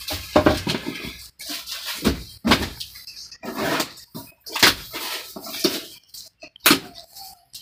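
Handling noise from a cardboard parts box and its packaging on a desk: irregular rustles, scrapes and knocks as the box is picked up, marked with a pen and its lid opened.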